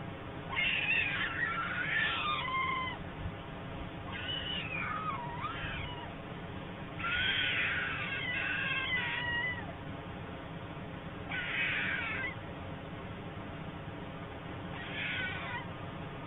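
Young white storks calling: five bouts of wavering calls, a few seconds apart, each sliding up and down in pitch.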